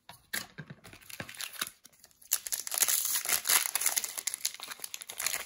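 Foil trading-card booster pack wrapper being torn open and crinkled by hand: scattered rustles at first, then dense, loud crinkling from a little before halfway on.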